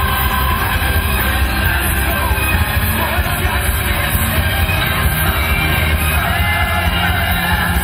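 Loud music playing without a break.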